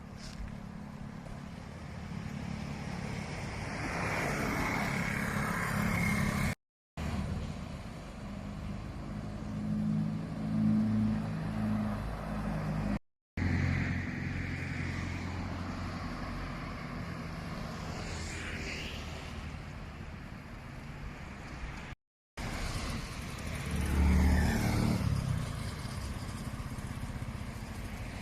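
Road traffic: vehicles driving past one after another, engine hum and tyre noise swelling and fading with each pass, broken by a few abrupt cuts. One passing vehicle's whine falls in pitch about two-thirds of the way through, and a heavier, lower pass is the loudest moment near the end.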